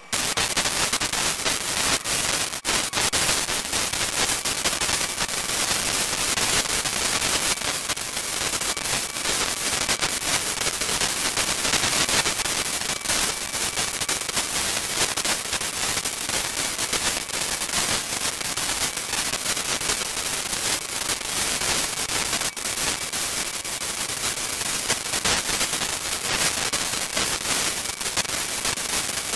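Loud crackling static, radio-type interference noise thick with rapid clicks and pops, cutting in abruptly at the start, with a faint steady high whine underneath.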